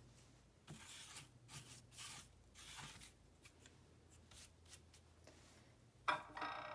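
Faint painting-table handling noises: soft scuffs and rubs of a watercolour brush and supplies. About six seconds in comes a louder, short clink that rings briefly.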